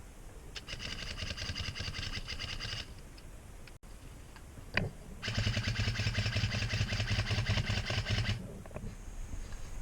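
Airsoft electric gun firing on full auto: two long bursts of rapid, evenly spaced shots, the second one longer, with a single click between them.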